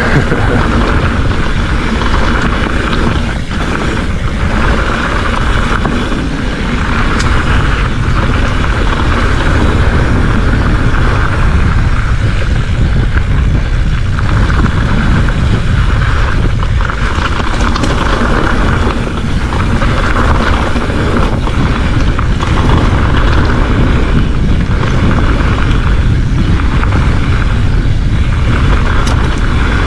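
Wind buffeting the microphone and tyres rumbling over dirt singletrack as a Specialized Fuse hardtail mountain bike is ridden at speed, a steady loud rush with low rumble throughout.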